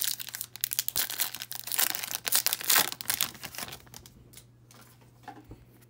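Foil wrapper of a Panini Prizm football card pack being torn open and crinkled by hand; the crinkling fades out about three and a half seconds in.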